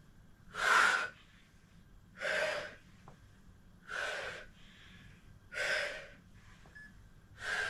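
A woman's sharp, audible breaths: five strong breaths about one every second and a half, each in time with a crunch of a side-to-side Pilates oblique crunch.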